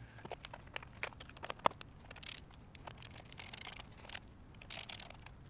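Faint handling noise from the parts of a Commodore VIC-20 being put back together: scattered light clicks and a few short rustles.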